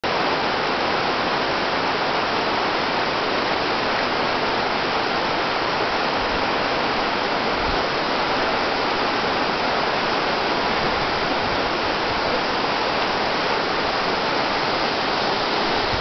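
A waterfall and white-water rapids rushing steadily over rocks, a continuous even noise of fast-flowing water.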